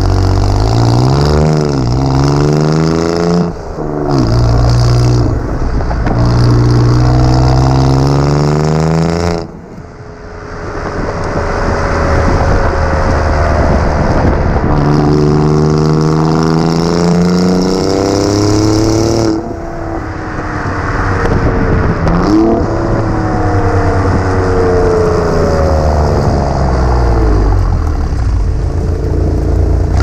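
Stock exhaust of an Alfa Romeo Giulia Quadrifoglio's 2.9-litre twin-turbo V6, heard at the tailpipes while driving: the engine accelerates with its pitch climbing and dropping back at each gear change. About a third of the way in it lifts off suddenly and the engine note gives way to road noise, then it pulls hard through the gears again.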